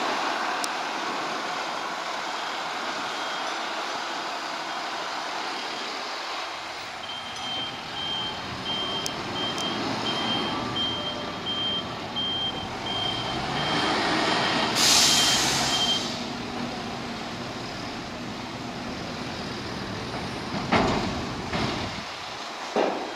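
A heavy vehicle's warning beeper sounding in a steady row of short beeps, about two a second, while its diesel engine runs and revs up. A burst of air hiss comes as the beeping stops, and a few sharp clanks follow near the end.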